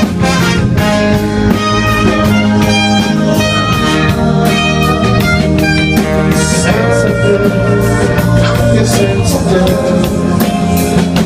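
A band playing an instrumental passage of a rock song, with guitar over a drum kit.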